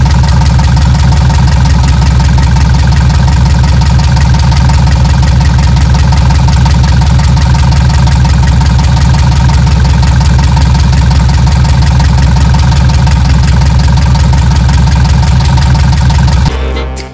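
Volkswagen Fusca's air-cooled flat-four engine idling steadily through a new pair of stainless-steel exhaust tips, loud and even. It cuts off shortly before the end.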